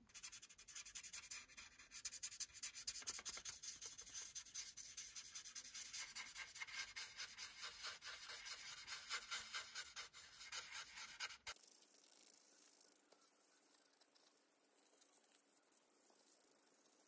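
Imagine Ink magic-ink marker scribbling back and forth over coloring-book paper in quick, quiet strokes as a picture is coloured in. About eleven and a half seconds in, the strokes give way abruptly to a fainter, steadier hiss.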